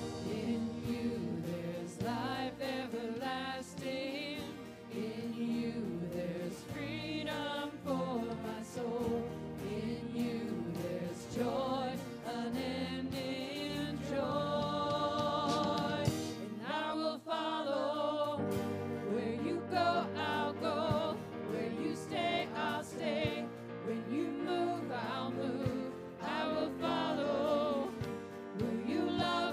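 Live worship band performing a song: several voices singing together over acoustic guitar, bass, keyboard and drums.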